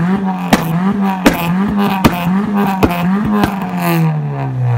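Remapped small hatchback engine held at raised revs and blipped up and down, its exhaust giving six sharp pops and bangs about half a second to a second apart, the sign of a pop-and-bang map. The revs drop back toward idle near the end.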